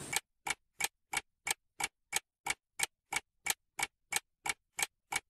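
Steady ticking sound effect, about three even, sharp ticks a second.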